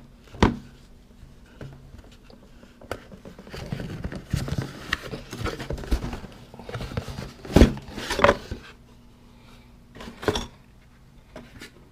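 Unpacking sounds as tool-box contents are handled: rustling packaging and several sharp knocks and clacks of hard items being picked up and set down.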